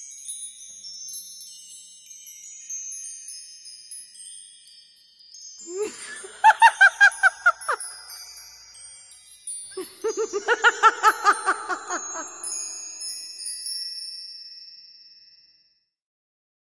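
Outro music of high twinkling chimes, with two loud bursts of a rapidly pulsing, pitched sound in the middle, about seven pulses a second; it all fades out about a second before the end.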